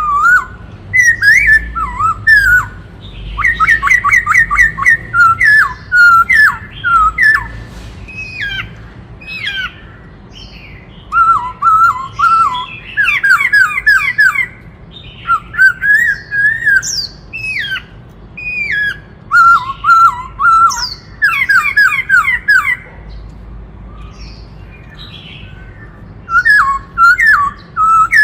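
Black-throated laughingthrush singing loud, varied whistled phrases: fast runs of repeated notes and sharp rising and falling glides. It stops for a few seconds near the end, then starts again.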